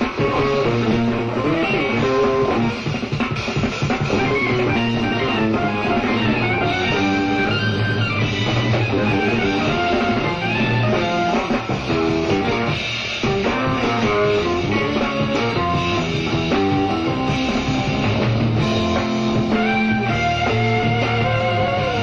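Jazz-rock fusion band playing live, with electric guitar and drums over a steady groove, heard as a direct soundboard recording.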